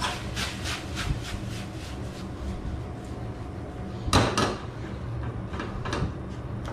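Wooden spatula scraping and knocking against a small wok while stir-frying, a quick run of strokes at first and a louder clatter about four seconds in, over a steady low hum.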